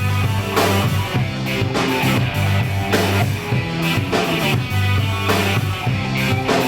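Rock band playing live, an instrumental passage with drum kit, bass and electric guitar and no vocals.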